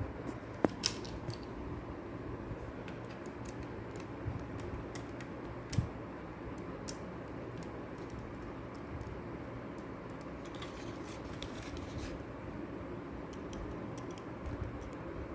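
Small metal clicks and scrapes from a toy metal construction kit's nut, bolt and screwdriver being handled and fastened, over a steady low background hum.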